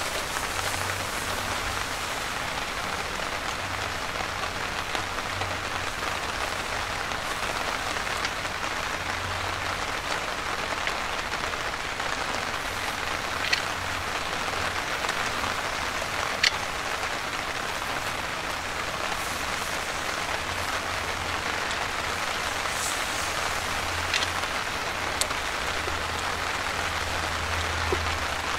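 Heavy, steady downpour of rain, with a few sharp clicks scattered through it.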